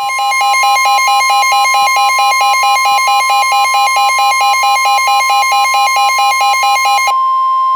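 NOAA Weather Radio alert tone: a loud, steady single tone near 1 kHz (the 1050 Hz warning alarm), signalling that a warning is about to be broadcast. A rapidly pulsing, many-toned electronic beeping sounds over it and stops shortly before the steady tone cuts off.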